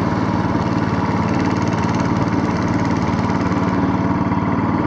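Small boat's engine running steadily under way, with a fast, even pulse and no change in speed.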